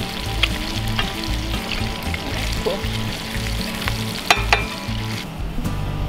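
Bacon sizzling and frying in a cast iron skillet, a steady crackling hiss. There are two sharp metal clinks a little after four seconds in. The sizzle drops away shortly before the end.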